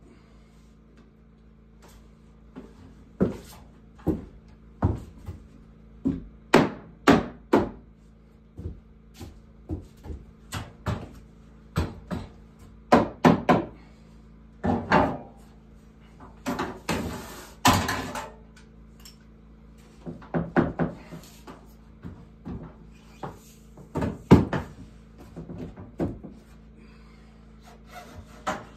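Hammer blows knocking wooden ceiling boards overhead into place: sharp wooden knocks, often in quick twos and threes with pauses between. A short scraping rub about two-thirds of the way through.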